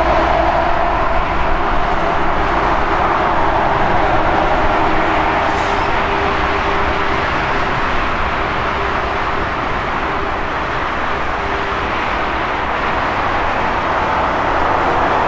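Airbus A340-600's four Rolls-Royce Trent 500 jet engines running at low taxi thrust as the airliner taxis past: a steady, loud jet rumble with a held mid-pitched tone.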